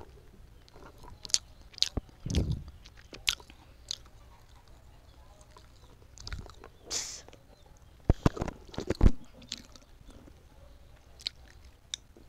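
Close-up eating sounds: irregular biting and chewing clicks and wet mouth smacks, with a brief breathy hiss just past the middle and a busier run of clicks after it.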